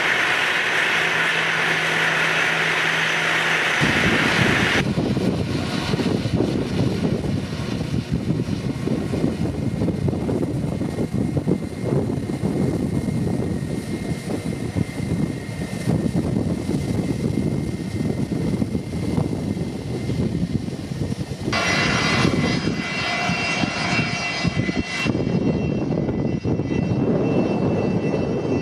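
Jet airliners taxiing with their engines at idle, a steady whine and hiss. Strong wind buffets the microphone with an uneven low rumble through most of it, and the sound changes abruptly about four seconds in and again near twenty-two and twenty-five seconds.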